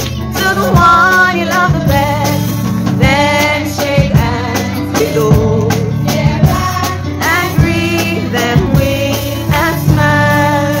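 Lively gospel praise song: a woman's voice carries the melody over instrumental accompaniment with a steady beat.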